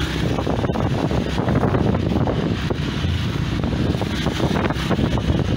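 Wind buffeting the microphone on a moving motorcycle, a steady low rumble with the motorcycle's running and road noise underneath.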